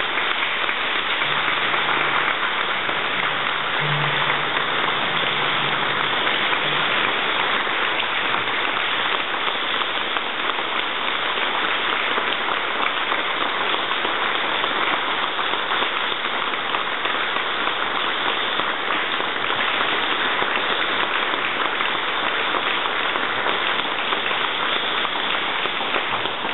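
Congregation applauding: a long, steady round of clapping.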